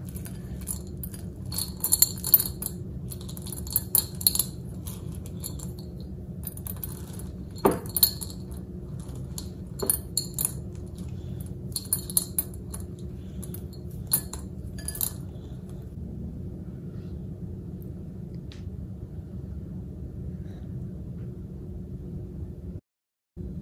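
Cookie dough being mixed by hand in a bowl: light clinks against the bowl in small bunches for about fifteen seconds, over a steady low hum. After that only the hum remains, broken by a brief dropout near the end.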